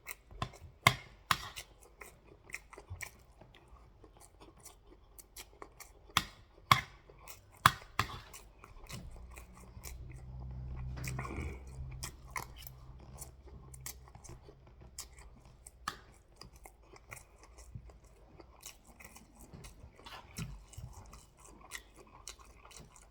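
Close-up chewing and biting while eating jollof rice with turkey, with many sharp wet mouth clicks and smacks scattered throughout. Near the middle, a low steady hum rises for a few seconds.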